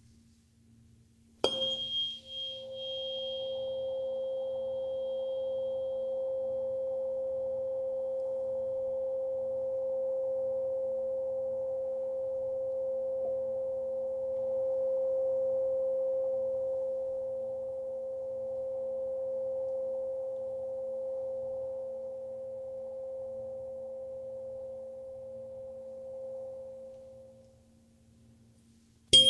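A Solfeggio-set tuning fork struck once, a second and a half in: a sharp strike and a brief high metallic ping, then a single pure, steady tone that rings on and slowly fades out near the end. A second fork strike comes right at the close.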